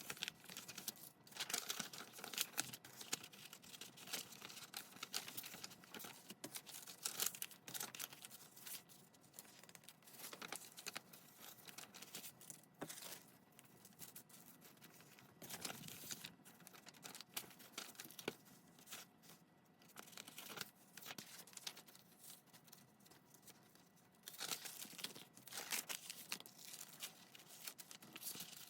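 Paper being torn and handled: irregular papery rips, rustles and crinkles, quieter for a stretch past the middle.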